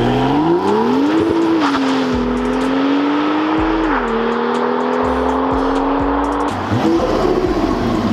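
Car engine at full throttle accelerating hard through the gears: the pitch climbs, drops at an upshift about a second in and again about four seconds in, climbs again and breaks off about six and a half seconds in. Background music plays under it.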